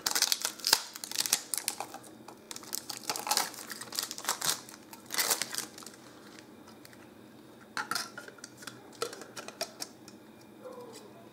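Crackling of a clear plastic bag being pulled off a plastic underwater camera housing, then scattered clicks and knocks of hard plastic as a Sony action camera is handled and fitted into the housing.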